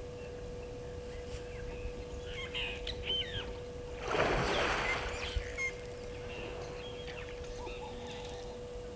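An African elephant sweeping its trunk through the water of a waterhole, making one splash about four seconds in that lasts a second or so. Birds chirp in the background before and after, over a steady faint hum.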